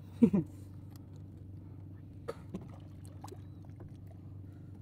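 Low, steady hum of a boat engine, with a few faint knocks and water sounds as a diver lowers himself off an outrigger canoe into the sea.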